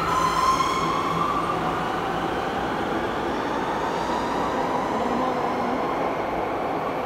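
Light-rail train pulling out of an underground station: a high motor whine that rises slightly and fades over the first couple of seconds, over a steady rumble of wheels on rail. The rumble slowly dies away as the train runs into the tunnel.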